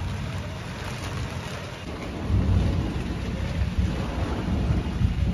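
Steady rain falling, with a low rumble of thunder that starts at once and swells louder about two seconds in, rolling on to the end.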